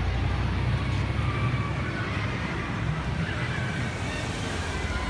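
Steady low rumble of city street traffic and vehicle engines.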